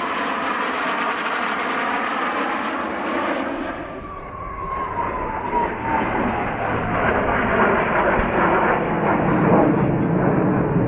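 Aero L-29 Delfin jet trainers flying a display, their turbojet engines heard as steady jet noise. The sound changes suddenly about three and a half seconds in, then an engine whine slides down in pitch as a jet passes, and the noise grows louder toward the end.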